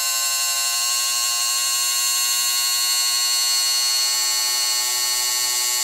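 Small electric motor and gearbox of a motorized Walthers model bascule bridge whining steadily while raising the span, running at 5 volts. The pitch holds constant without rising or falling, the sign of a loose, free-running linkage rod with no tight spots loading the motor.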